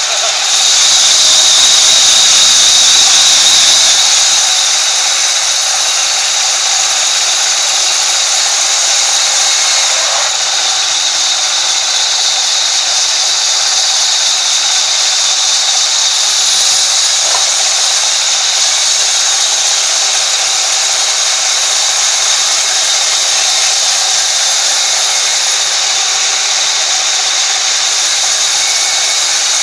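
Sawmill band saw running and ripping through a thick wood slab as it is fed by hand: a loud, steady, hissing whine. It is loudest for the first few seconds, then holds steady.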